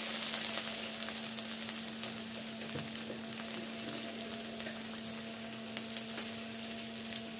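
Chopped ginger and whole spices frying in hot oil in a kadai: a steady sizzle with scattered small pops, easing down over the first couple of seconds and then holding.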